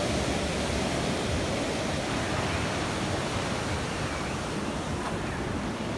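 Steady wash of ocean surf on a beach, mixed with wind on the microphone, an even noise with no distinct events.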